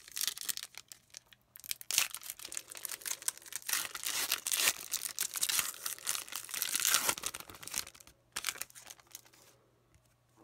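Foil wrapper of a hockey trading-card pack being torn open and crinkled by hand, a dense crackling in quick bursts that dies down about eight seconds in.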